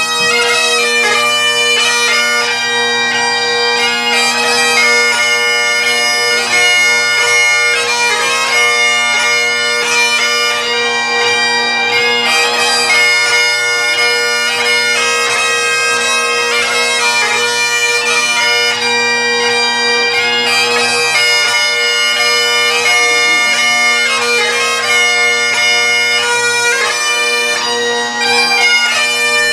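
Bagpipes playing a tune over steady low drones.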